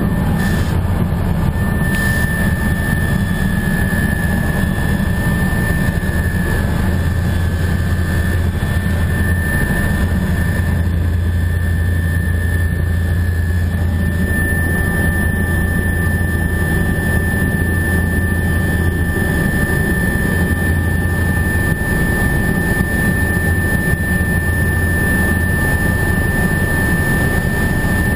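Helicopter in flight heard from inside the cabin: a loud, steady drone of the engine and rotors with a constant high whine on top.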